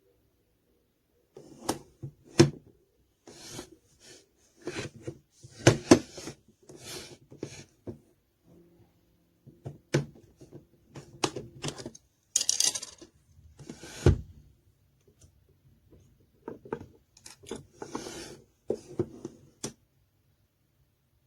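Handling noise: irregular clicks, knocks and short rustles of objects being moved about.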